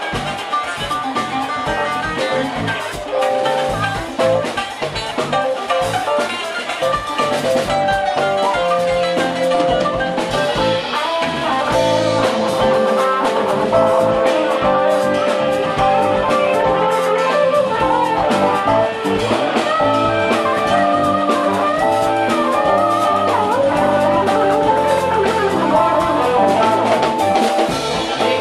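Jazz fusion band playing live: drum kit, electric bass and guitar, with a saz picking a melodic line among them.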